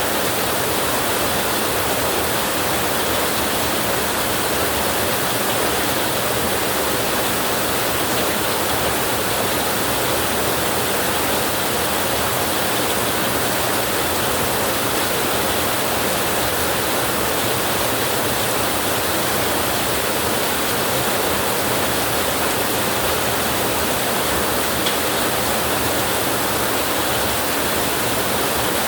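Steady, dense rainfall: an even hiss of heavy rain with no thunder and no change in level.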